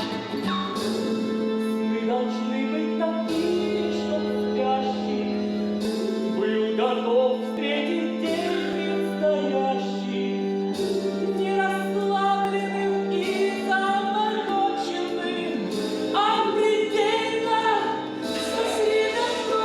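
A song from a stage musical: singing over an instrumental accompaniment, its low notes held and changing every few seconds.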